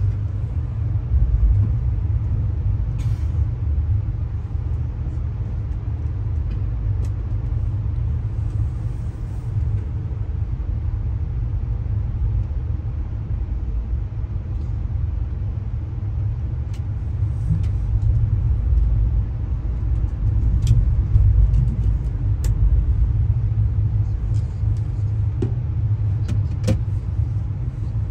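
Steady low rumble of a passenger rail car rolling along the track, heard from inside the car. A few faint clicks and rattles sound now and then.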